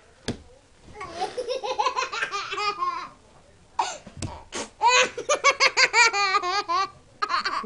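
A toddler laughing hard in two long bouts of quick, high-pitched belly laughs, the first about a second in and the second, louder one around five seconds in.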